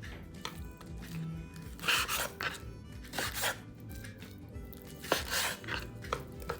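Knife cutting raw skinless, boneless chicken thighs on a chopping board: a few separate slicing strokes with sharp knocks of the blade on the board.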